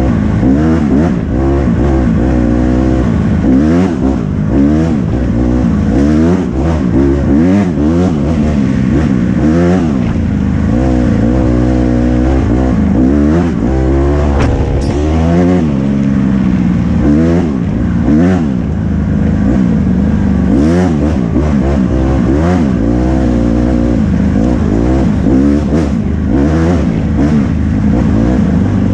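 Dirt bike engine under hard riding, its pitch rising and falling over and over as the throttle is opened and closed.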